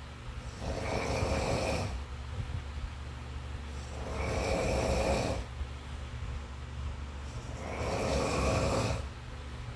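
Snoring, added as a background track: three slow snores, one about every three and a half seconds, over a steady low hum.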